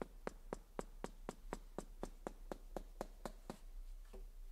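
Mallet tapping steadily on the steel frame of a CNC mill at about four light taps a second, with a short pause near the end. It is tamping freshly poured concrete in the mill's base to bring the water up to the surface.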